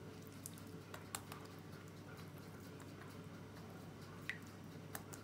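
Faint soft dabbing and light clicks of a silicone pastry brush spreading oil over yufka-wrapped parcels in a glass baking dish, over a steady low hum.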